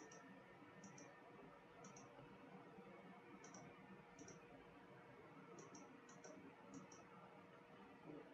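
Near silence with faint computer mouse clicks: about nine short double ticks (press and release), spaced irregularly, over a low steady room hum.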